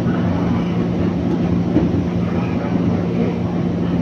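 A train running, heard from on board: a steady rumble with a constant low hum.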